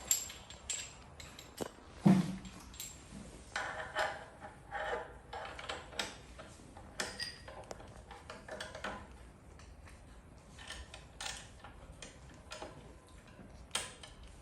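Metal tubes and connectors of a golf-bag holder being handled and fitted together: irregular clicks, clinks and knocks, with one louder knock about two seconds in and a few short ringing clinks a little later.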